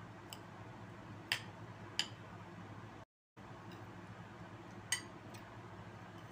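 A few sharp, scattered clicks and clinks of eating: spoon against a plate and food being handled and chewed, over a steady low hum. The sound cuts out completely for a moment about three seconds in.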